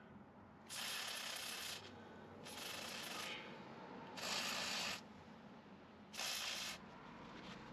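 Aerosol contact cleaner sprayed through its straw onto a brake wear sensor's connector in four short hissing bursts, each about a second or less.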